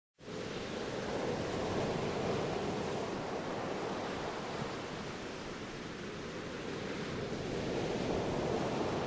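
Ocean surf sound effect: a steady wash of breaking waves that cuts in abruptly from silence, then swells and eases, louder about two seconds in and again near the end.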